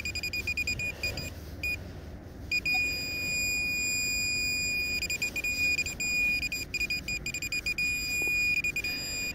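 Minelab Pro-Find 40 pinpointer sounding on a metal target in freshly dug soil, here a small piece of lead. It gives rapid repeated beeps for about two seconds, stops briefly, then holds a nearly steady high tone with short breaks now and then, the sign that the probe is right on the target.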